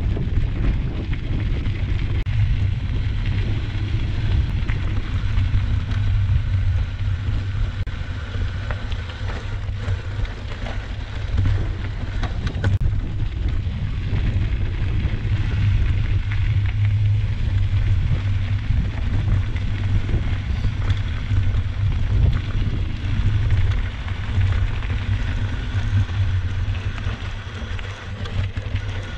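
Steady wind rumble buffeting the microphone of a camera on a mountain bike rolling down a loose gravel road, with the tyres crunching over the gravel and a few sharp clicks from stones and the bike rattling.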